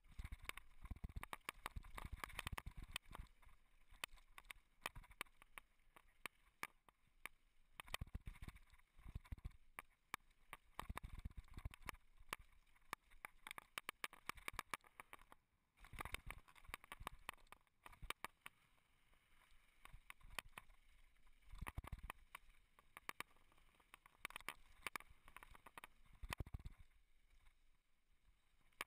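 Mountain bike clattering down a rough dirt and rock trail: a dense, irregular run of clicks, rattles and knocks from the bike with low thuds over bumps, coming in uneven bursts with a few quieter stretches.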